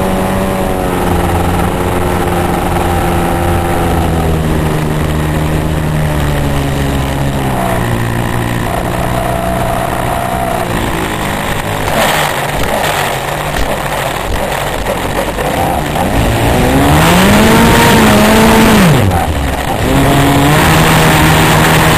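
RC stunt plane's engine heard close up from a camera on the plane, throttled back so its pitch sinks as the plane comes down. It then runs rougher through the touchdown on grass and is revved up and down twice while taxiing, the second burst held briefly before easing off near the end.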